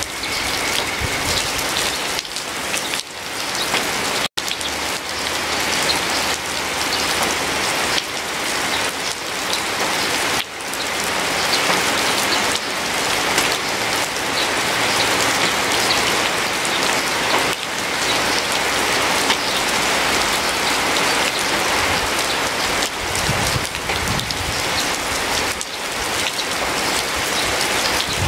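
Steady rain falling, an even hiss of many drops, with a split-second break in the sound about four seconds in.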